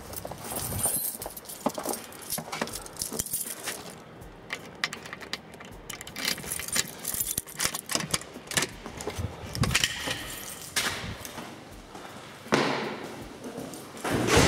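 A bunch of keys jangling and clinking, with small knocks and clicks from a door being handled and opened.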